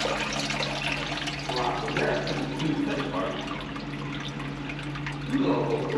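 Water running and splashing in a drain manhole, over a steady low hum, with brief faint voices about a second and a half in and near the end.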